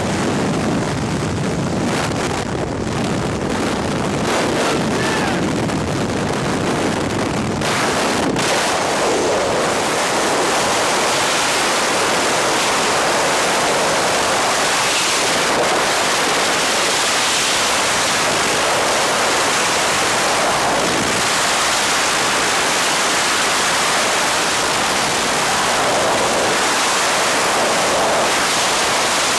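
Wind rushing over a helmet-mounted camera's microphone in a skydive. It is gusty at the open aircraft door, then from about eight seconds in becomes a loud, steady rush of freefall wind.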